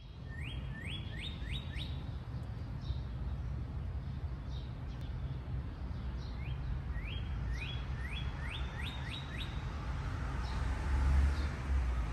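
Northern cardinal singing: two series of clear whistled notes, each note sliding upward and the notes coming faster through the series, one series at the start and another about six seconds in, over a steady low outdoor rumble.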